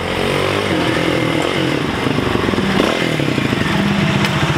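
Small motorcycle engine running and being revved, its pitch rising and falling, then dropping back about three seconds in to a steady, even idle.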